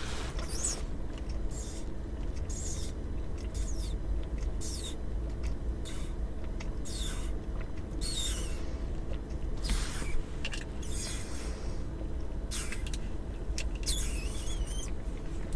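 Lemonade being sipped through a straw: short squeaky slurps, roughly one a second, some with high falling glides.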